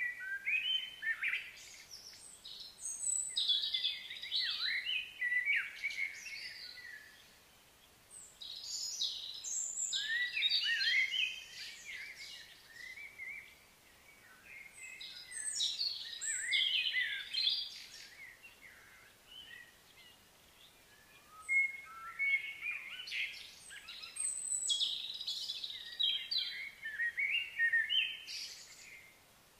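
Songbirds singing in about four bouts of fast, varied chirping phrases, each a few seconds long, with quieter pauses between them.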